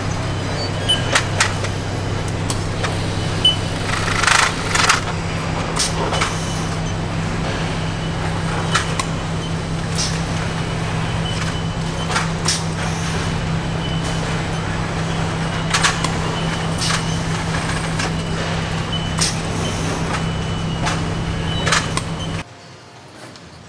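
Car assembly-line factory noise: a steady low machinery hum with scattered short clanks and clicks of hand tools and metal parts. Near the end it drops suddenly to a much quieter background.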